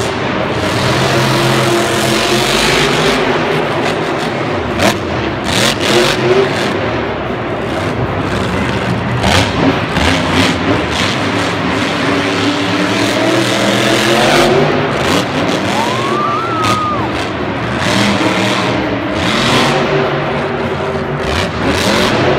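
Grave Digger monster truck's supercharged V8 engine revving hard, its pitch repeatedly climbing and falling as the driver works the throttle. A few sharp bangs cut through about a quarter and half way through.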